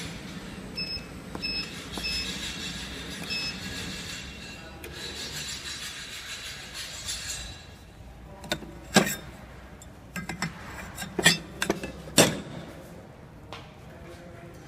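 Automatic granule packing machine running with a steady mechanical hum, with four short, high electronic beeps in the first few seconds. In the second half come several sharp clinks and knocks.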